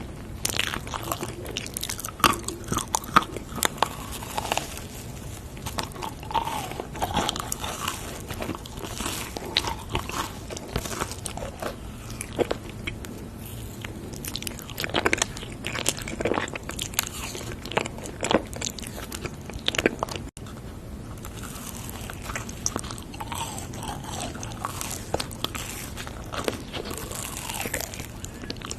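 Close-miked eating: crunchy bites and chewing, with many sharp, irregular crunches.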